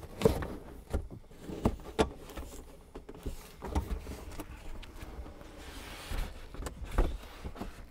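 Carpeted trunk side trim panel being peeled back by hand: scattered knocks and clicks with rustling and scraping of the fabric-covered panel, and a longer scrape about six seconds in.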